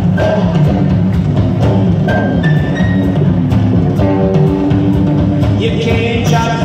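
Live band playing an instrumental passage without vocals: upright double bass and drum kit keep a steady beat under electric guitar notes.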